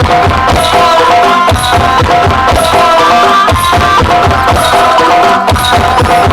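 Loud dance-remix music with a steady drum beat and hand-drum percussion, played over a large outdoor sound system.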